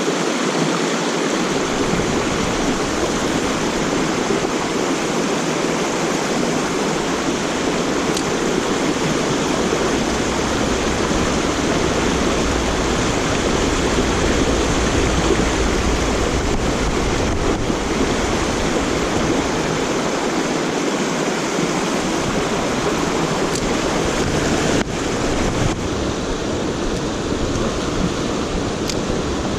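Mountain stream water rushing steadily over rocks, a constant full rush of flowing water close by.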